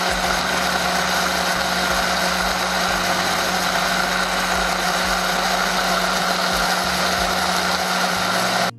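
Countertop blender motor running steadily, blending a liquid seasoning mix of vinegar and oil, with a constant hum under the whirring; it cuts off sharply near the end.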